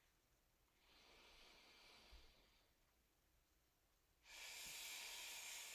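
A woman's faint breathing during a slow bridge exercise: a soft breath about a second in, then a longer, louder breath from about four seconds in.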